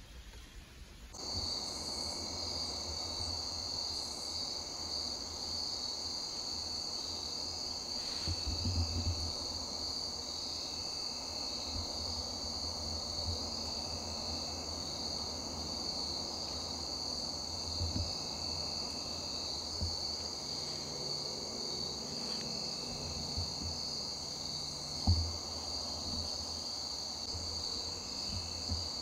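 Crickets trilling in a steady high chorus that starts sharply about a second in. There are a few dull low thumps, the loudest near the end.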